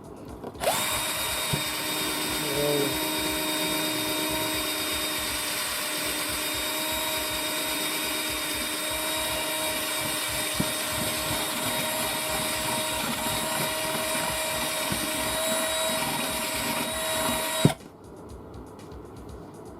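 Small Ozito hobby drill running at a steady speed with a high whine. It starts about a second in and stops abruptly near the end.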